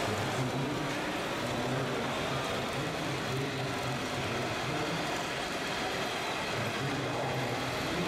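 Small electric motors and hydraulics of 1/14-scale RC construction models running, with a steady low hum that drops out for a couple of seconds past the middle and then returns, over a constant noisy background.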